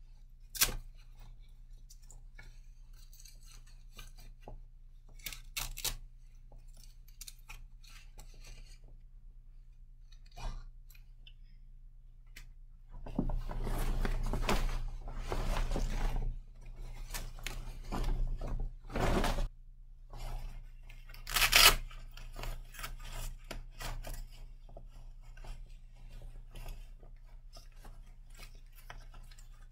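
Rustling and brushing of camouflage clothing being handled and pulled on, with a few sharp clicks. There is a louder, longer stretch of rustling in the middle and a sharp click a little after it, over a low steady hum.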